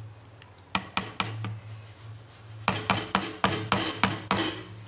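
Metal utensils clinking and knocking against a steel pan as semolina is added to boiling sugar syrup and stirred for suji halwa. A few light clinks come about a second in, then a quick run of about eight ringing knocks near the end, over a steady low hum.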